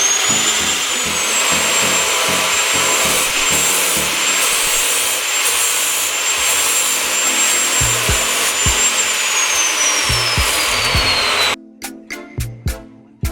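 Bosch GCO 240 metal cut-off saw motor running at full speed with a high, steady whine over a loud hiss. The whine sinks in pitch over the last few seconds before the sound cuts off abruptly about eleven and a half seconds in, giving way to music with a steady beat.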